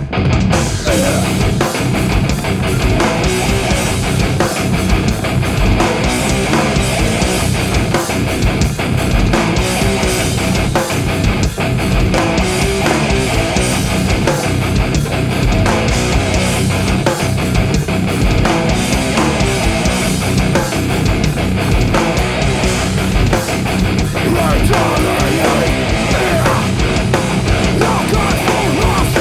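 A heavy rock band playing live: distorted electric guitar, bass guitar and drum kit, loud and dense without a break.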